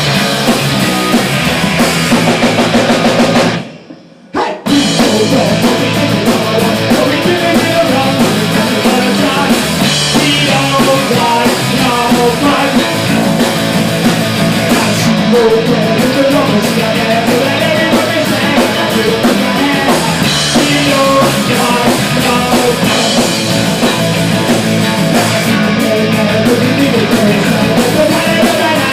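Rock band playing with drum kit, bass and electric guitar after a count-in. The band stops for a moment about four seconds in, then kicks back in and plays on.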